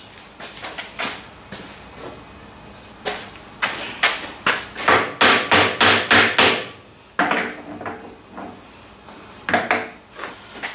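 Hammer or mallet blows on the loosened swivel tool head of a metal shaper: scattered knocks, then a quick run of about three a second in the middle, then a few more near the end, knocking the head round on its slide.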